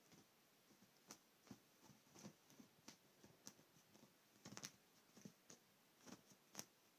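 Faint, irregular scratching and rustling of a cat's paws and claws on a duvet as it pounces and bats about: about a dozen short scuffs and clicks, the loudest a cluster about four and a half seconds in and a single sharp one near the end.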